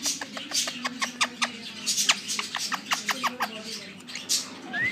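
Indian ringneck parrot making a quick, irregular run of soft clicks and short chirps, about four to six a second.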